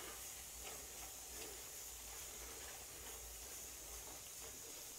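A spatula faintly stirring a thick, simmering pea-and-fenugreek gravy in a nonstick kadai, with a few soft ticks over a low steady hiss.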